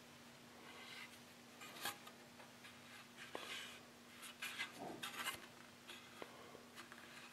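Faint, scattered rubbing and scratching with a few light ticks, over a faint steady hum.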